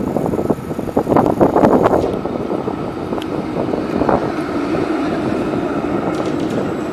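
Valmet MLNRV2 articulated tram running past close by: a dense clatter of wheels on rails for the first two seconds, then a steady running drone, with a brief higher tone about four seconds in.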